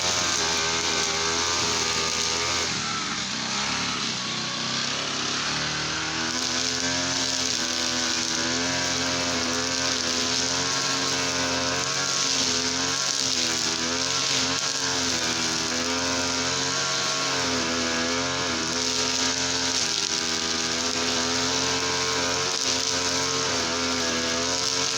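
Small two-stroke Easyman TL33 brush cutter engine running continuously at a steady level, its pitch wavering slightly up and down.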